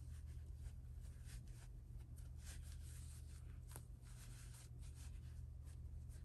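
Faint, scattered soft rustling and rubbing of stuffing being pushed into a small crocheted toy body, with one light tick about four seconds in. A steady low hum sits beneath it.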